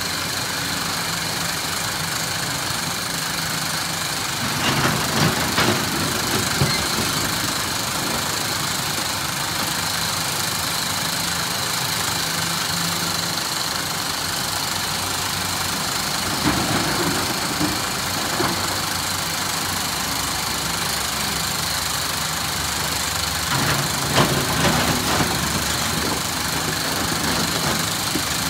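Diesel engine of a SANY SY365H PRO excavator running steadily while loading andesite stone, with three spells of louder knocking and clatter, each a couple of seconds long.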